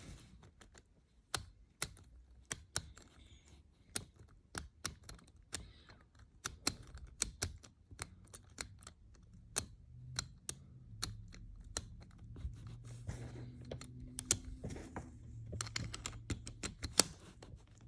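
Combination lock being turned by hand: irregular sharp clicks, often several a second, as its numbers are set to reset the code.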